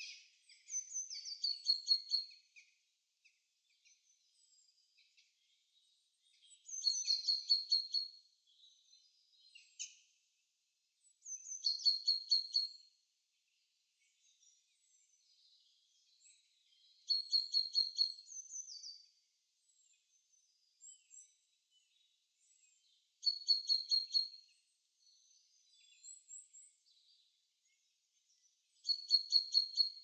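A songbird singing the same short, fast phrase of repeated high notes that drop in pitch into a run of notes, about six times, roughly every five to six seconds, with faint chirps from other birds between the phrases.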